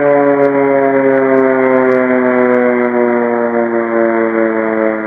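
Civil defense siren sounding one long continuous wail, its pitch slowly falling.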